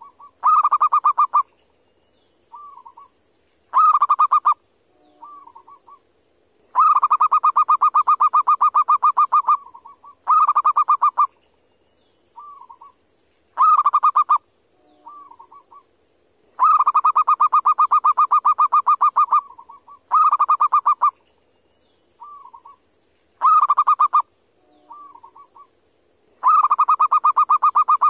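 Zebra dove (perkutut) calling: loud bouts of rapid staccato cooing notes, some short and some lasting two to three seconds, alternating with softer short notes in between. A steady high-pitched hiss runs underneath.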